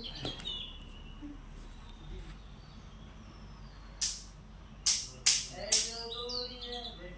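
Birds chirping in short high calls, with four sharp knocks in quick succession about four to six seconds in, the loudest sounds.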